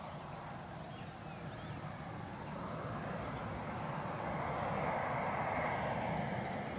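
Eclipse very light business jet's twin Pratt & Whitney Canada PW610F turbofans heard on approach, a steady rushing jet noise that grows louder from about halfway through as the aircraft comes nearer.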